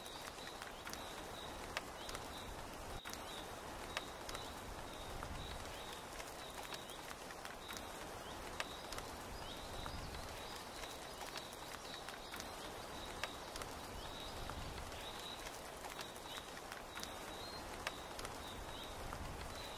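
Steady rain pattering on tent canvas, with a short high chirping call repeating all through and a few sharp ticks, like drips, scattered across it.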